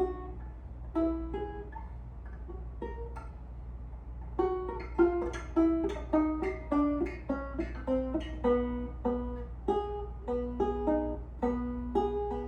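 Ortega Falcon banjo being picked: a few separate, tentative notes, then from about four seconds in a steadier run of quicker plucked notes over a faint low hum.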